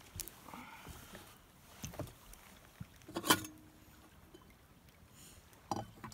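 Light clinks and knocks of a metal pot lid and spoon being handled, the loudest about three seconds in with a short metallic ring. A few more brief ringing clinks come near the end as the lid is set down on the wooden table.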